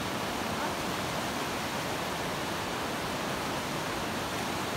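Rapids of a broad, shallow river rushing over boulders: a steady, even sound of white water.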